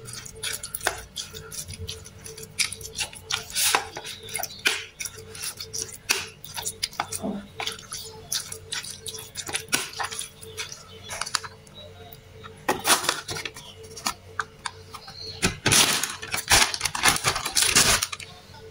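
Tofu being mashed in a plastic bowl: a metal spoon and fingers clicking, knocking and scraping against the bowl in a run of short irregular taps. Near the end comes a louder stretch of scratchy rustling, a couple of seconds long.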